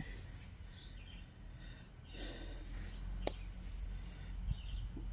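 Low background hum with a few faint bird chirps and a single sharp click a little over three seconds in.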